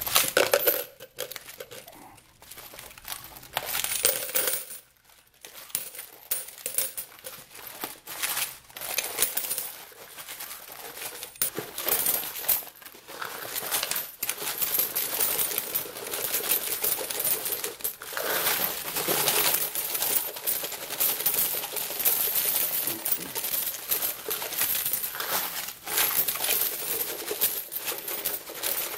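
Loose, unsorted coins (pennies, nickels, dimes and quarters) pouring from a bottle into a plastic quart container: a continuous jingling clatter of coins landing on coins, with a few short pauses, the longest about five seconds in.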